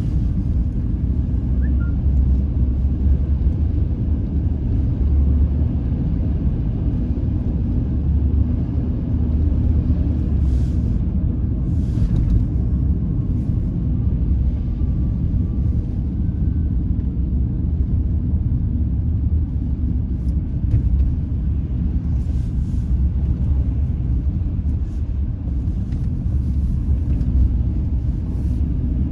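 Car driving on city streets, heard from inside: a steady low rumble of engine and tyre noise, with a few faint ticks now and then.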